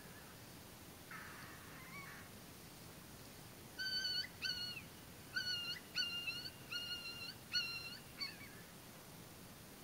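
A run of about eight short, high calls in quick succession, each one held at a steady pitch, starting about four seconds in. A fainter, hoarser call with a rising end comes about a second in.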